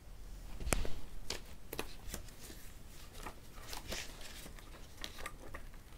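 Rustling and handling noises from hands and cloth moving close to a clip-on microphone: a sharper knock under a second in, then a string of soft clicks and rustles.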